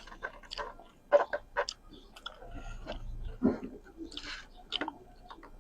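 A person chewing food with the mouth close to the microphone: irregular wet smacks and clicks of lips and teeth, a few of them sharper and louder.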